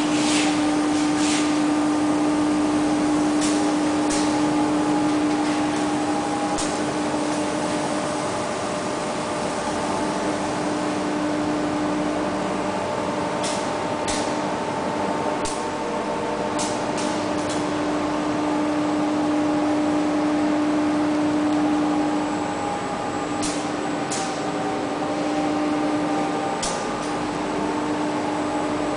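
Machinery of an EVA sheet extrusion line running steadily: a continuous motor hum with a strong low tone, and scattered sharp clicks.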